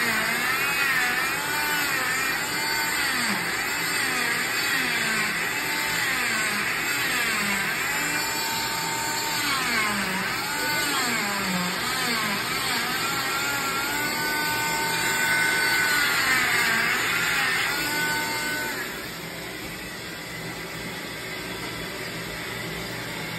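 Oscillating cast saw running as it cuts through a fiberglass arm cast, its motor whine repeatedly dipping in pitch and coming back up as the blade is pressed into the cast. The saw stops about three-quarters of the way through.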